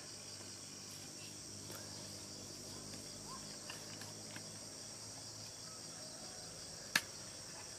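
Steady high-pitched drone of insects, with a single sharp knock about seven seconds in.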